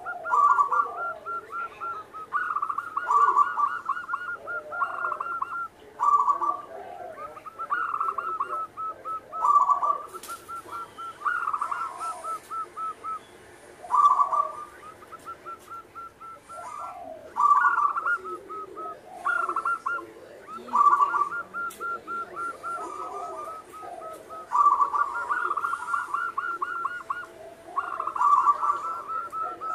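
Zebra dove (perkutut) singing: phrases of quick rolling coos, each a second or two long, repeated over and over with short gaps between them.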